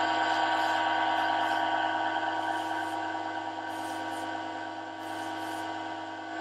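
Bench grinder running at speed with a steady whine while its wheel trims the edge of a neoprene wetsuit patch. There are a few brief hisses as the neoprene touches the wheel.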